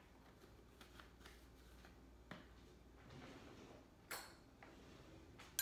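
Quiet kitchen handling sounds: light clicks and taps of a spice jar and measuring spoon, then a wooden kitchen drawer sliding open about three seconds in, with a sharp knock just after four seconds and another at the end.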